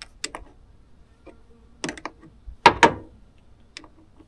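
Adjustable wrench clinking on a battery terminal clamp bolt as it is tightened: scattered metallic clicks, the loudest two close together a little before three seconds in.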